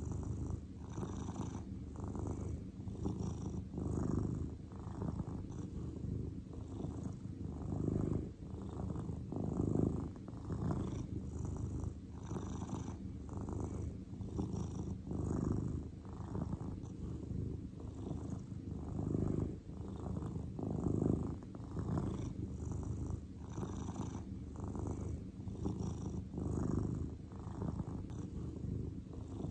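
Domestic cat purring steadily, a continuous low rumble that swells and eases with each breath, about every two seconds.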